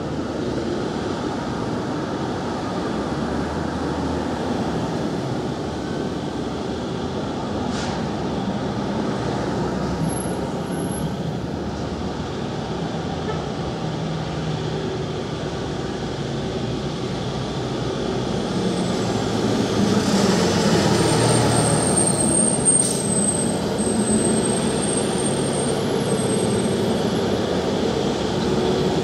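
Steady city street traffic noise, swelling louder for a few seconds about two-thirds of the way through as something passes.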